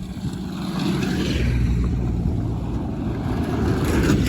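A vehicle running, a steady low rumble.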